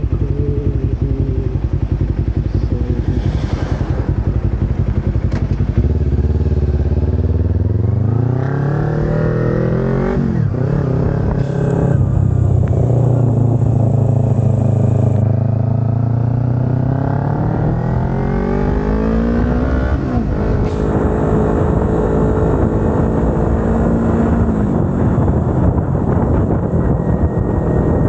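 Kawasaki Ninja 250R's parallel-twin engine idling, then revving as the bike pulls away from a standstill. The engine climbs through the gears with several gear changes breaking the rising pitch, then settles into a steady cruise.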